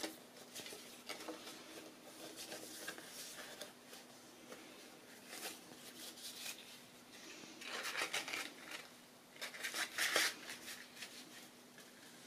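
Paper rustling and crinkling in bursts as a folded paper flexagon is flexed and folded shut by hand. The loudest bursts come about eight and ten seconds in.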